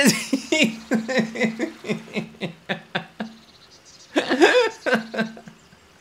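A man laughing helplessly, a rapid run of short "ha" bursts at about four a second for some three seconds. A louder burst of laughter comes about four seconds in, then it dies away.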